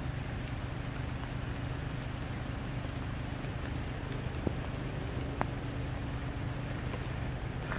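Heavy rain pouring down in a dense steady hiss, with a low steady hum underneath and a couple of sharp drip-like ticks about halfway through.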